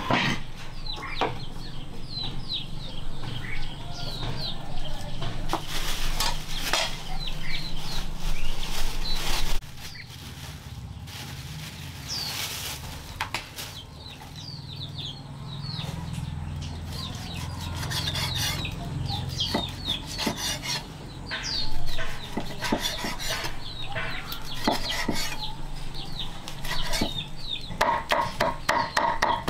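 Chickens calling: many short, falling high peeps from chicks, with clucking, over rustling and scraping. A quick run of clucks comes near the end.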